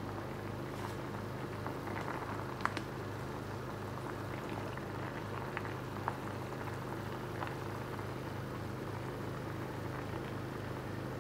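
Sauce boiling steadily in a stainless steel pan of simmering fish, with a few sharp pops, the loudest about two and a half seconds in.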